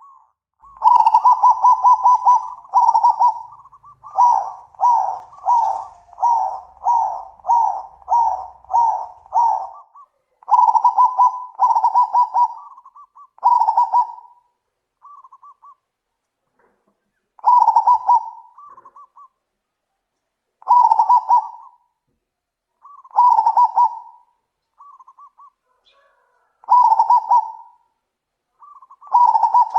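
Zebra doves (perkutut) cooing: short, rolling coo phrases repeated over and over, run together quickly for the first ten seconds, then coming every two to three seconds, some led in by quick stuttering notes.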